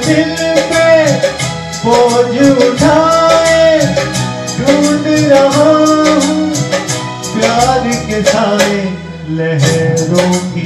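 A man singing a Hindi song into a handheld microphone, with held, bending notes over an instrumental backing that has a steady beat.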